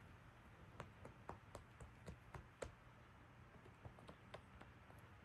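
Faint scattered clicks and taps, most of them in the first three seconds: a cat scuffling on a quilted fabric mat while biting and kicking a feather wand toy. A low steady room hum lies under them.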